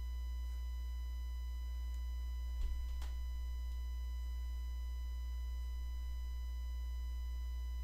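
Steady low electrical hum with a faint high whine over it, broken by two soft clicks about two and a half and three seconds in.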